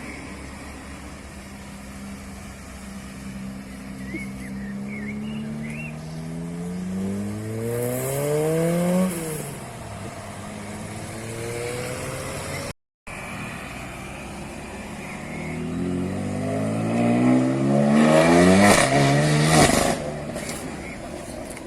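Tuned car engines revving hard under acceleration, the pitch climbing steeply and then falling away, twice in two separate takes. The second and louder one ends in a quick run of sharp cracks from the exhaust.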